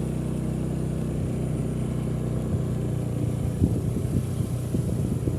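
Small motorcycle engine running steadily at idle, turning rougher and less even about three seconds in.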